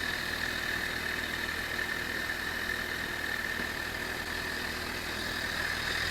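Suzuki GSX-R motorcycle engine idling steadily in neutral, with a constant high whine over the low hum. The chain has snapped, so the running engine drives nothing.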